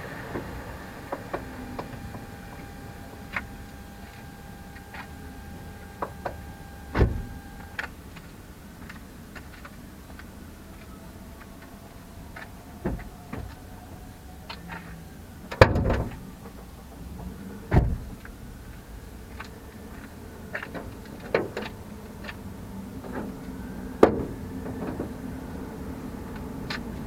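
Car engine running with a steady high whine that stops about eight seconds in. Sharp knocks and clicks are scattered through.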